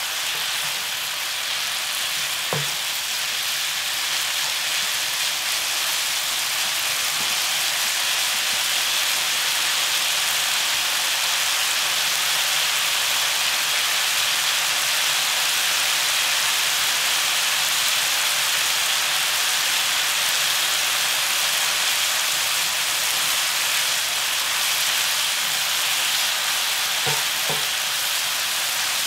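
Bracken fern stems sizzling steadily in perilla oil in a frying pan as they are stir-fried. The spatulas knock lightly against the pan about two and a half seconds in and again near the end.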